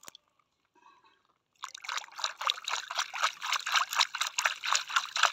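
Water splashing and sloshing as a hand swishes a small plastic toy through the water in a plastic tub. It starts about one and a half seconds in and goes on as a quick run of irregular splashes.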